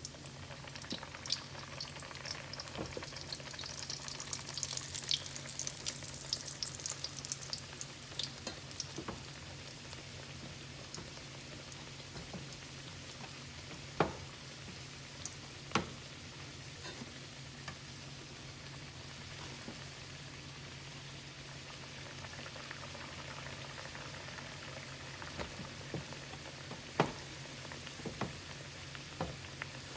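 Guyanese bakes (fried dough) sizzling in hot vegetable oil, with dense crackling for the first several seconds that thins to a steady sizzle. A few sharp clicks stand out, louder than the frying, along with a steady low hum.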